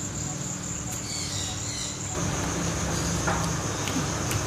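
Insects, crickets by the sound of it, trilling steadily at a high pitch, with a low steady hum underneath.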